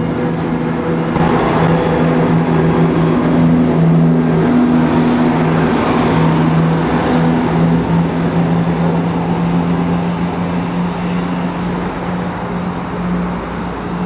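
ScotRail diesel multiple unit pulling away along the platform, its underfloor diesel engines running with a steady low drone over the rumble of wheels on rail. The sound swells as the carriages pass close by, then eases as the train draws away near the end.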